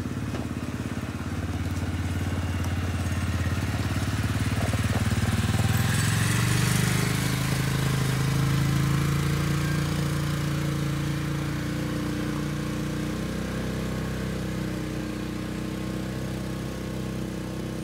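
Polaris Ranger 570 utility vehicle's engine running as it drives past towing a log splitter. It grows louder as the vehicle comes close and then slowly fades as it moves away.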